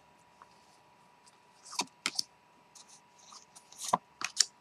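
Osho Zen Tarot cards being drawn from a fanned deck and laid on a wooden table: short sharp card snaps and brief slides, a few about two seconds in and a quicker cluster near the end. A faint steady tone hums underneath.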